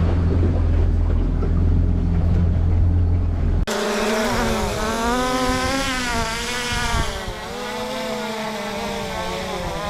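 A boat's outboard engine runs steadily at low speed, then cuts off abruptly. It is followed by the high whine of a camera drone's propellers, its pitch wavering up and down as the motors adjust.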